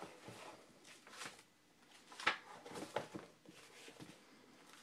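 Pages of a spiral-bound cookbook being turned and the book handled: a series of short, soft paper rustles and light knocks, the loudest a little past two seconds in.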